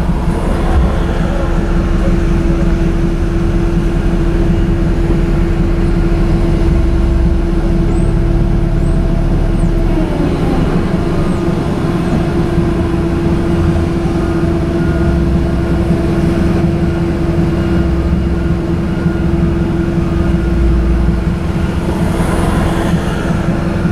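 Mazda 3's 2.3-litre four-cylinder idling with a steady hum, heard from inside the cabin while stopped. Cross traffic passes, and a tractor-trailer rumbles by about ten seconds in.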